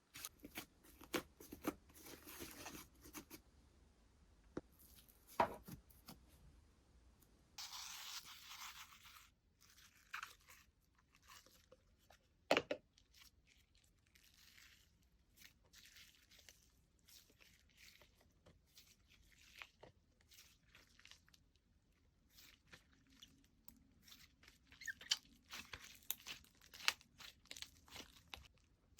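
Slime being squished, stretched and poked by hand, making irregular crackling clicks and pops, with a longer hissing tear as it is pulled apart about eight seconds in and a denser run of crackles near the end.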